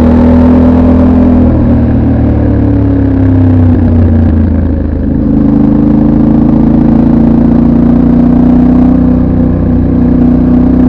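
Yamaha Tenere 700 World Raid's 689 cc parallel-twin engine heard on board through its stock exhaust, under way. The engine note falls over the first few seconds and dips briefly about five seconds in, then pulls steadily with a slowly rising pitch.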